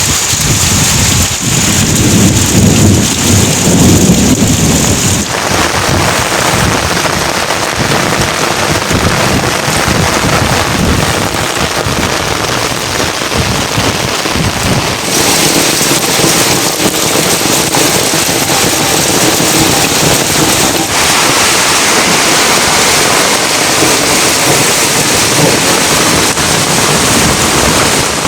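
Heavy rain falling, a dense, loud hiss throughout, with a low rumble in the first few seconds. The sound of the rain shifts abruptly about five and fifteen seconds in.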